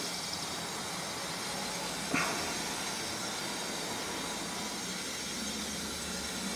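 Harbor Freight electrostatic powder coating gun spraying black wrinkle powder on compressed air: a steady hiss, with one short sharp sound about two seconds in.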